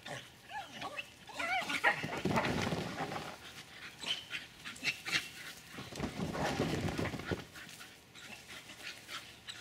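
Staffordshire bull terrier barking and yelping in repeated excited bursts.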